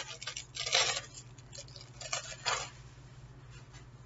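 Clear plastic bag crinkling as a stretchy hat is pulled out of it, in a few short rustling bursts, the loudest about a second and two and a half seconds in.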